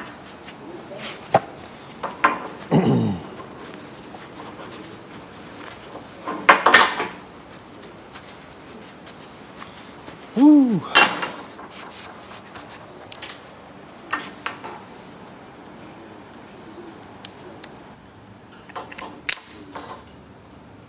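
Intermittent clinks, knocks and scrapes of steel pedal-cluster parts and hand tools being handled on a concrete surface, with a few louder clatters about seven and eleven seconds in.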